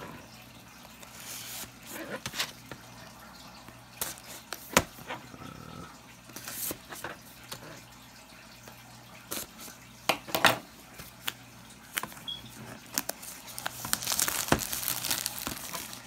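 Hands unboxing a cardboard watch box: a folding knife slitting the box's seal, with scattered sharp clicks and taps of handling, and a longer stretch of plastic wrap crinkling near the end.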